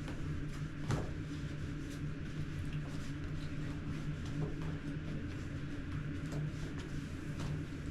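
Steady low hum of room noise with scattered light clicks and taps, the clearest about a second in.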